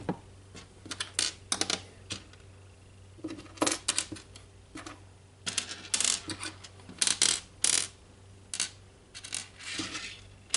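Small loose metal screws and parts clinking and rattling as they are picked through by hand, in irregular clusters of sharp clicks.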